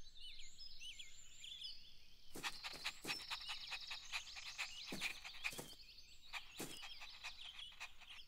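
Birds chirping and trilling as background ambience, with a handful of short, sharp sounds between about two and a half and seven seconds in.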